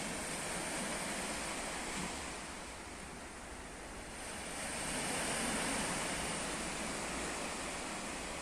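Ocean surf: waves washing in as a steady rush of water that swells twice, once near the start and again past the middle.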